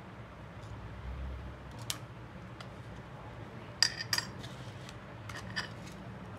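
Small metal tools clicking and clinking against phone parts during a phone repair, over a steady low hum. There is one tap about two seconds in, a sharp cluster of clinks around four seconds, and a few more near the end.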